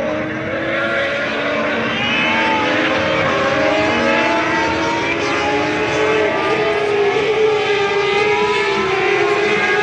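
Several Turismo Carretera race car engines running at high revs together, their pitches overlapping and sliding up and down as the cars accelerate and go by.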